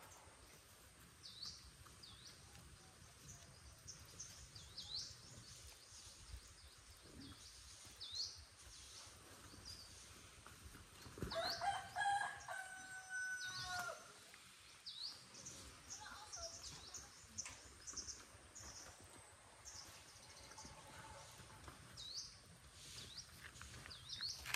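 A rooster crows once about eleven seconds in, a call lasting nearly three seconds and the loudest sound. Short, high bird chirps repeat every second or two throughout.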